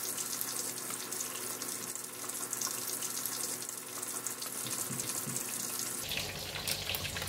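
Black pomfret deep-frying in hot oil: a steady crackling sizzle. Near the end a metal spoon stirs in a glass bowl.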